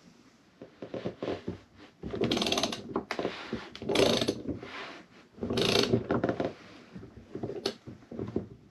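Ratchet handle clicking in short runs as the fuel pump's locking ring is turned down on the plastic fuel tank, with three louder bursts of rapid clicks about two, four and six seconds in.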